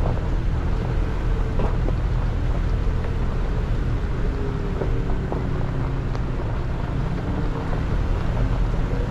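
Toyota Tacoma TRD Off Road pickup driving on a rough trail: a steady low engine and tyre rumble, with a few short knocks and clicks from the truck on uneven ground.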